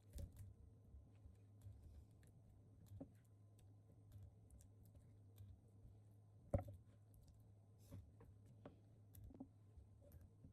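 Near silence with a low steady hum and scattered faint clicks and light knocks, one sharper knock about two-thirds of the way through.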